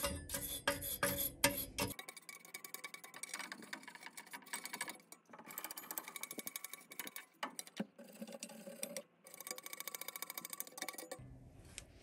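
Small wire brush scrubbing a furnace flame sensor/igniter rod in rapid scratching strokes, cleaning the white deposits off the tip where the flame is sensed.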